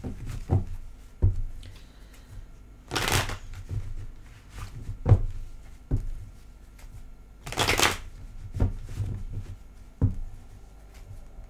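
Hand-shuffled deck of tarot cards: soft taps and clicks of the cards, with two longer rustling riffles about five seconds apart.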